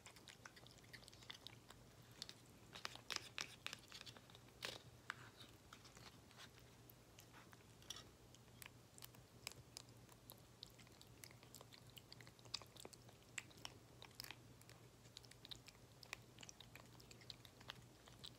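Siamese cat eating soft wet cat food from a spoon: faint, irregular small smacking and licking clicks of chewing, with a few louder ones.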